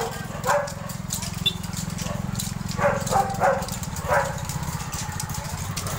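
A dog barking, a few short separate barks, most of them bunched a little past the middle, over the steady low running of a small engine.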